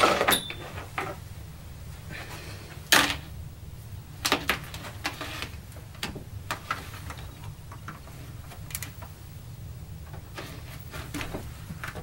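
Scattered clicks and knocks of hands handling cables and the plastic Sony PlayStation 1 console, with one sharp knock about three seconds in.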